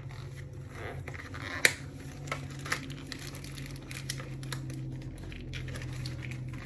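Packaging crinkling and rustling in the hands, with scattered short crackles and clicks, as a boxed beauty product is handled and opened. A low steady hum runs underneath.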